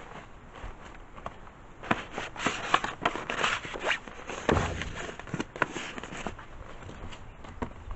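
Gifts being handled and packed into a shoebox: crinkling, rustling and sharp clicks, with a dull thump about four and a half seconds in.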